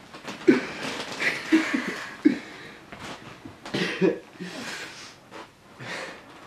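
A man's breathy, irregular vocal outbursts, several short fits of gasping sound with brief voiced bits, loudest about half a second in and again about four seconds in.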